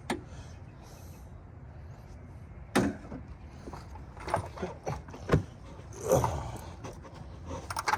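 Scattered knocks and clicks of hands and tools handling parts in a car's engine bay, over a steady low hum. A few sharp knocks stand out in the middle, the loudest about five seconds in.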